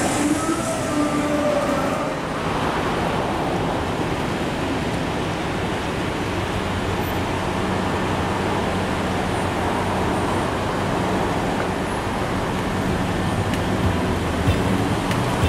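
Road traffic at an airport curb: cars and a shuttle bus idling and pulling past, a steady noise with a low engine hum. The first two seconds hold a different hum with a few held tones.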